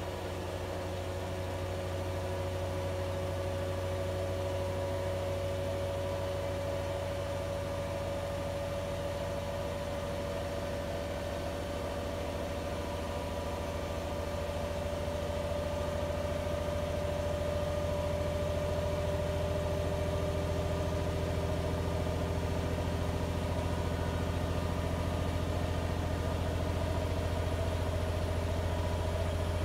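Siemens iQ500 WM12T80TR 9 kg, 1200 rpm washing machine spinning: a steady low hum with a motor whine that slowly rises in pitch as it gets gradually louder. A machine in sound condition, with no knocking from worn shock absorbers or helicopter-like drone from worn bearings.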